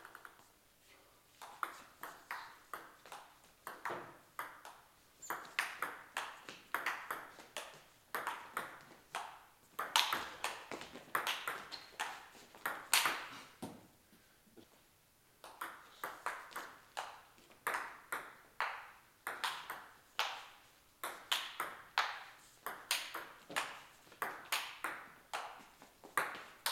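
Table tennis rallies: the ball clicking sharply off the table and the bats, which are faced with short attacking pimples on one side of the net and long defensive pimples on the other, about two hits a second, with brief breaks between points.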